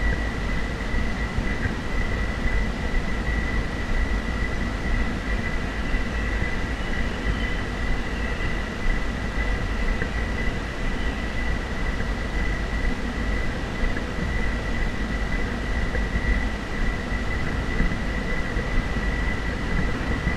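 Wind buffeting the camera microphone as a continuous fluttering low rumble, with a thin steady high-pitched whine throughout.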